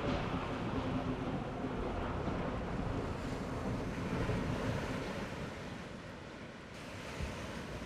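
Sea surf and wind: a steady rushing rumble of waves that eases a little about six seconds in and then swells again.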